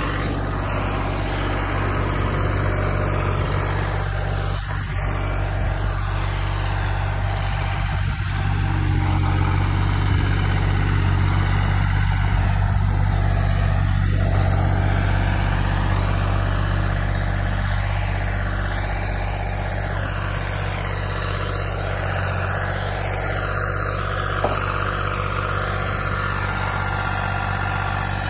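Engine of an LM42 ride-on trencher running steadily, growing a little louder for several seconds in the middle.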